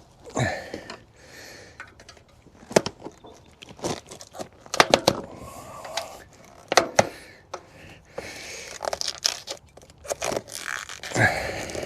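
A 50mm WTB Resolute tubeless tyre being pushed onto a wheel rim with the fingers: the rubber bead scrapes and rubs against the rim, with irregular sharp clicks as it is worked over the rim edge.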